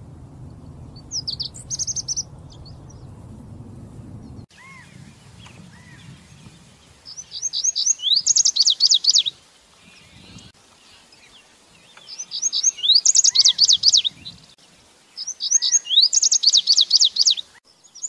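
Male lazuli bunting singing: a short high phrase over a low rumble, then three loud song phrases of about two seconds each, every one a few quick lead-in notes running into a fast series of high notes.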